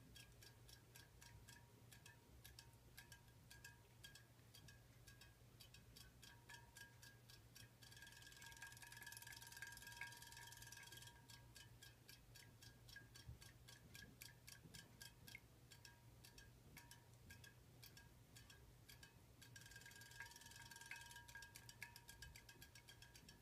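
Faint rapid, even ticking from a battery-powered robotic fish toy's tail mechanism running in a bowl, over a low steady hum. A soft hiss joins twice, for a few seconds each time.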